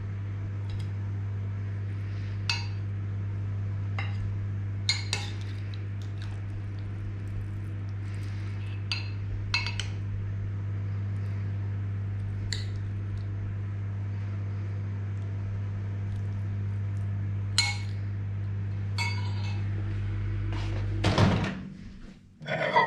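Microwave oven running with a steady hum, while dishes and cutlery clink now and then. Near the end the hum stops and there are a couple of louder knocks and clatters.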